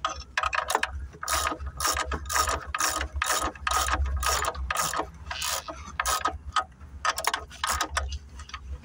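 Hand ratchet wrench clicking in repeated quick strokes, about three a second, as it tightens a fitting on a fiber-blowing Y block.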